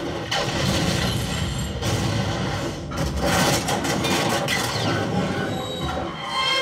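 Movie soundtrack of a train crash scene played through Emotiva Airmotiv C1 and C2 home-theater speakers: a train's heavy rumble and rail clatter under film music.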